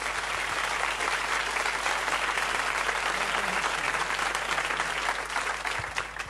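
Applause, steady and then tapering off near the end.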